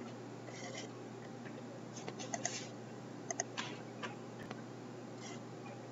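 Quiet room tone with a steady low hum and a few faint, scattered clicks.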